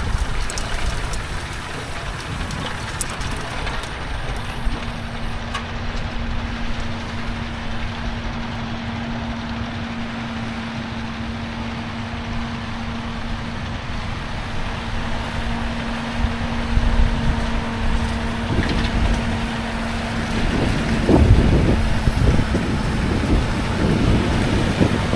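Heavy farm machine's engine running steadily, with a steady hum through most of it and heavier low rumbling toward the end.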